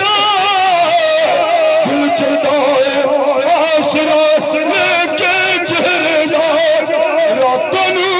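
A man singing a naat, a devotional poem in praise of the Prophet, into a handheld microphone over a sound system, in long held notes with a wavering vibrato.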